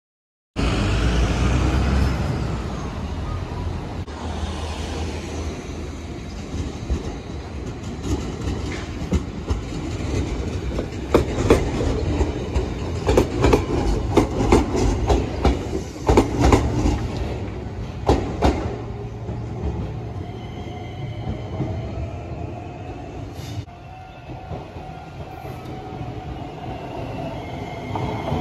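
Shinkansen train running on the track: a steady low rumble with a dense run of sharp clicks through the middle, and a faint whine that rises and falls near the end.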